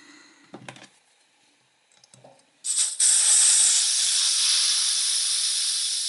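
Gas hissing out of a Zaima butane lighter's filler valve as the valve is pressed with a bleed tool, starting about two and a half seconds in, loud and steady, then slowly fading: trapped air is being bled from the large tank. A few light handling clicks come before it.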